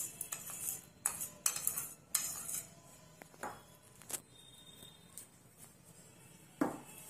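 A spoon scraping and tapping against a bowl as brown sugar is knocked out into a bowl of orange juice, a quick run of clicks and knocks, then a few scattered clinks as the bowl is set down.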